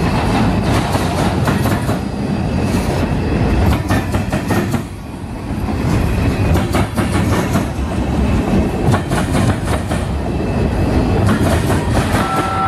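Freight cars of a CSX train rolling past close by, their wheels clattering in quick irregular clicks over the rail joints and the crossing diamond. Near the end a steady high-pitched tone sets in.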